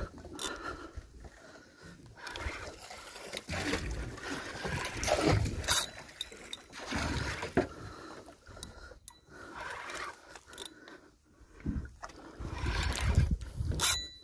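A spinning reel being cranked on a boat at sea, with irregular scraping and water noise around it and a few sharp clicks.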